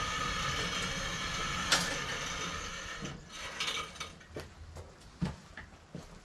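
A steady rushing noise with one sharp click partway through, which drops away about halfway; then a string of light mechanical clicks and knocks as metal parts are handled.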